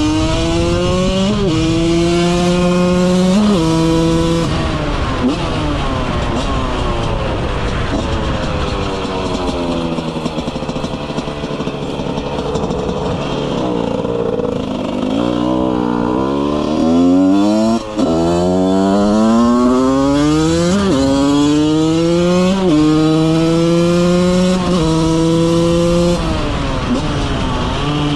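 Husqvarna 125 two-stroke motorcycle engine accelerating hard through the gears, the revs climbing and dropping sharply at each upshift. Around the middle the throttle eases off and the revs fall away, then it pulls up through several gears again.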